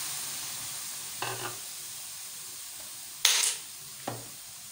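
Raw chicken pieces sizzling in a hot nonstick wok, a steady hiss that slowly dies down. A few short louder sounds break in, the loudest about three seconds in.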